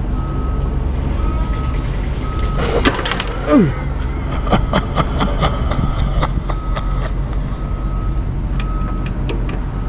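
Sharp metallic clicks and knocks from hand tools working under a vehicle, most of them in the middle few seconds. They sit over a steady low hum, with a short beep repeating about once a second.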